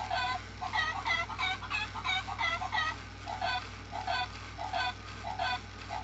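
Sega Toys Chirpy-Chi robot bird playing one of its electronic songs through its small speaker: a chirpy beeping melody of short notes, about four a second at first, then slower and more spaced out about halfway through.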